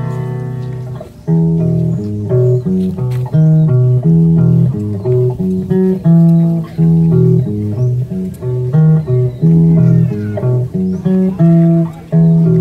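Background instrumental music: a ringing guitar chord fades out in the first second, then a melody of short plucked guitar notes plays over a bass line.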